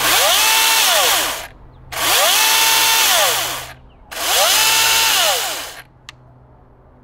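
Milwaukee 18-volt battery top-handle chainsaw revved three times with no load: each time the electric motor and chain whine up in pitch, hold for about a second, then wind down, with a small click near the end. Run in the air like this, it doesn't sound like it has much power.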